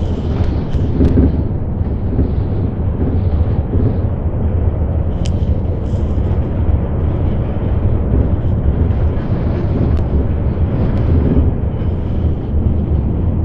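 Steady low rumble of a bus's engine and road noise heard from inside the passenger cabin while it drives along, with a couple of brief ticks.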